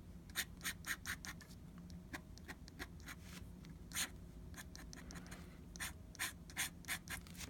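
Fountain pen nib scratching across paper in a run of short, quick, irregularly spaced strokes as feathers are drawn, over a low steady hum.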